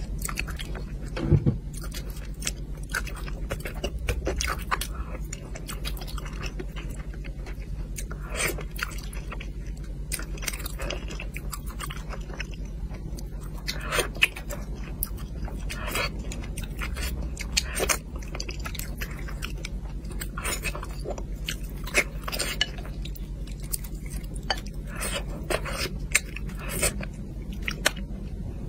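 Close-miked chewing of spicy braised fish: irregular wet mouth clicks and smacks as the food is bitten and chewed, over a steady low hum.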